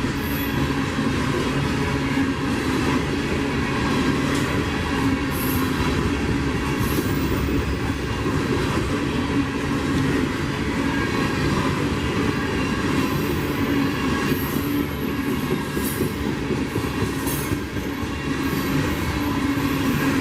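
Freight train rolling past: a steady rumble of steel wheels on rail, with short high-pitched wheel squeals now and then.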